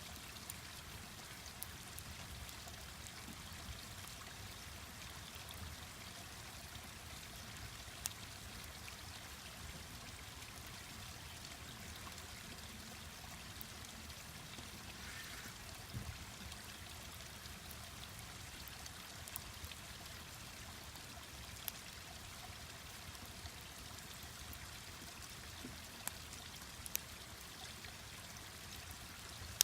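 A mountain stream rushing steadily, with sharp crackles and pops from a wood campfire scattered throughout.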